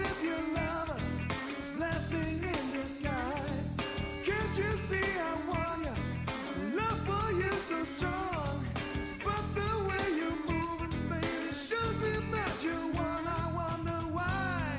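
Live rock band playing: electric guitar, bass and drums, with a wavering lead melody on top.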